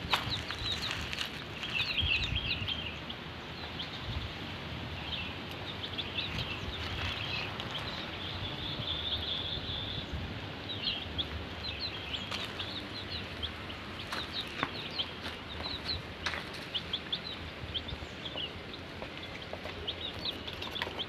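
Birds chirping: many short, high calls scattered throughout over a steady outdoor hiss, with a few faint clicks.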